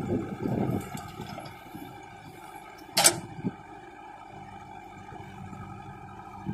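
JCB 3DX backhoe loader's diesel engine running steadily while the last of a bucketload of soil rumbles into a tractor trolley in the first second. A single sharp clank about three seconds in, with a smaller knock just after, as the backhoe arm swings back down to dig.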